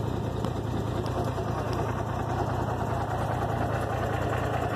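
Truck engine idling steadily close by, with a fast, even low throb.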